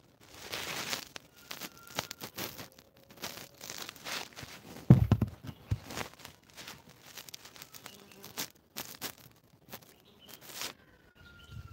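Rustling and scratchy handling noise with many small clicks, and a heavy bump about five seconds in as the phone is moved around close to the microphone.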